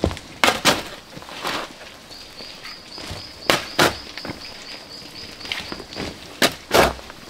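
A metal shovel biting into loose soil and gravel and throwing it, in three strokes about three seconds apart; each stroke gives a pair of sharp scraping crunches. A high chirp repeats about five times a second in the middle.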